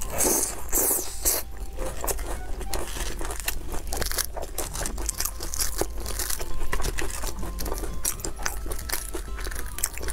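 Close-up crunching and chewing of crisp fried potato smiley-face cakes, with a loud crisp bite in the first second, then crackling as the crust is broken apart by hand.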